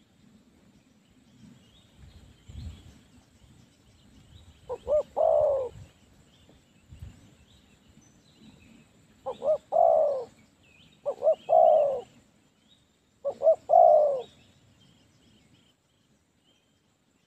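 Spotted doves cooing: four phrases, each two short notes and then a longer coo.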